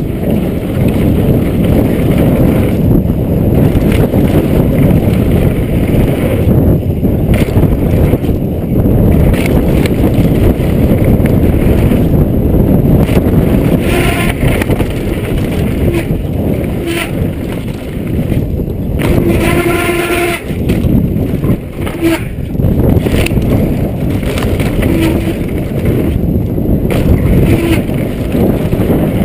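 Wind noise on a chest-mounted GoPro's microphone over the tyre roar and chassis rattle of a downhill mountain bike running fast over a dirt trail. A brief pitched tone sounds about two-thirds of the way through, with a few shorter ones after it.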